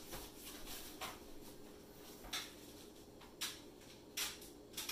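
Faint handling noises on a stainless steel worktable: about five short clicks and light knocks as gloved hands move a soap mold and tools, over a faint steady hum.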